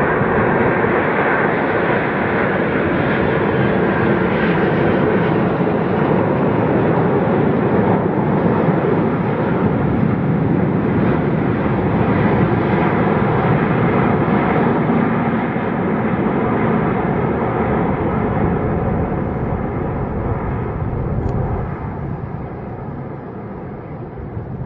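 Airbus A380 airliner's four turbofan engines on final approach at low power: a steady, loud jet rumble with a faint whine in it. It grows gradually quieter over the last several seconds as the aircraft passes and sinks toward the runway.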